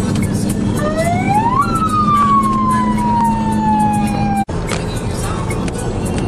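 Steady running noise of a vehicle on the road, heard from inside the cabin. Over it a single tone rises for about half a second and then slowly falls for about three seconds. The sound cuts out for an instant two thirds of the way through.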